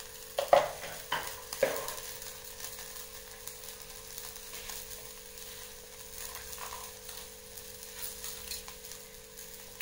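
Grated coconut and spices dry-roasting in an aluminium pan on a gas burner, a faint steady sizzle; the coconut is nearly browned, as it should be for a ground curry paste. A few sharp knocks come in the first two seconds.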